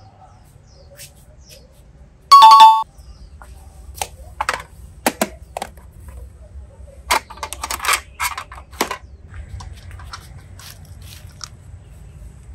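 A short, loud two-note electronic chime, a higher tone dropping to a lower one like a doorbell's ding-dong, about two seconds in. Scattered clicks and taps follow over the next few seconds as a hand handles a plastic box of water beads.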